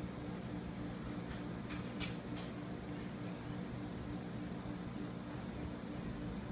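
A steady low hum, with a few short scratchy rubs about one and a half to two and a half seconds in, as excess LOCA glue is wiped off a phone screen with alcohol.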